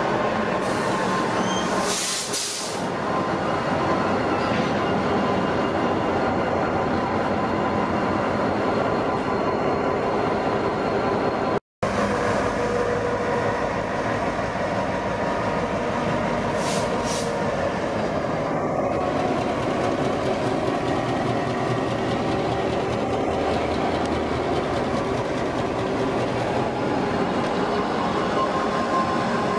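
Diesel freight locomotives passing close by, engines running steadily under the continuous rumble and clatter of wheels on rail, with a brief high hiss about two seconds in. The sound drops out for an instant near the middle.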